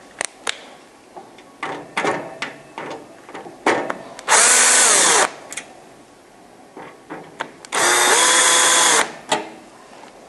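Cordless drill-driver run twice, about a second each time, backing out two Phillips screws from a dehumidifier's front panel; each time the motor whine rises as it spins up, then holds. Small clicks and handling knocks come between the two runs.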